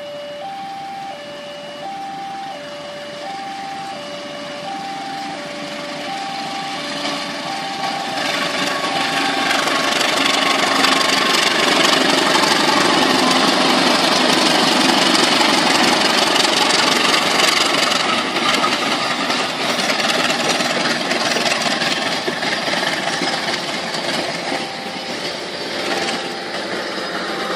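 A level-crossing warning signal's two-tone alarm alternates steadily at first, then a long-hood diesel-electric locomotive passes close by, its engine and wheels rising to a loud, steady noise about ten seconds in. The passenger coaches follow it past on the rails.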